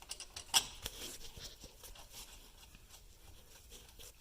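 Light clicks and taps as wheel-hub bolts are started by hand, the loudest about half a second in, followed by faint scattered ticks.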